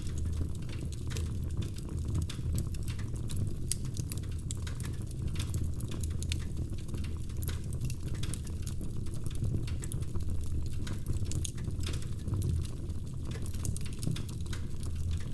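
Wood fire in a fireplace crackling, with many irregular sharp pops over a steady low rumble.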